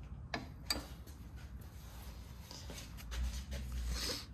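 A few light clicks and ticks of hand tools and small metal parts being handled while the carburetor is worked off an old outboard motor.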